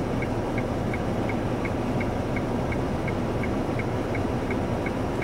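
Car turn-signal indicator ticking steadily, between two and three clicks a second, over the steady hum of the engine and tyres heard from inside the car.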